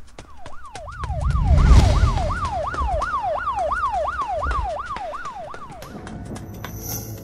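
A siren in a fast up-and-down yelp, about three sweeps a second, over a low rumble. It stops about six seconds in.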